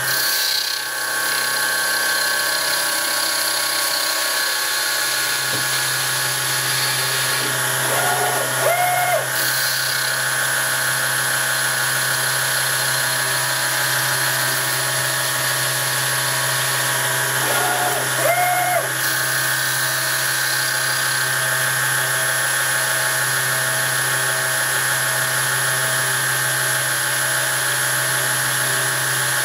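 Home-made servo-driven CNC lathe cutting an aluminium ball: a steady machine whine of the spindle and drives. Twice, about 8 and 18 seconds in, a short tone sweeps up and back down in pitch.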